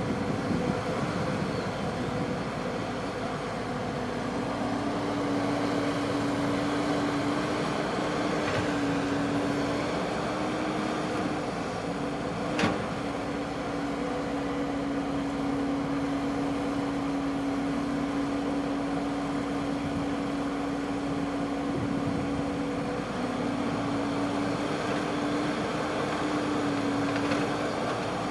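Engine of a Kubota rice-harvesting machine running at a steady pitch under even load, with a single sharp click about halfway through.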